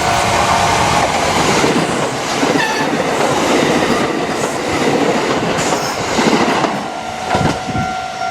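Kintetsu Osaka Line electric train passing over a level crossing, its wheels clacking over the rails, with the crossing's warning bell ringing steadily behind it.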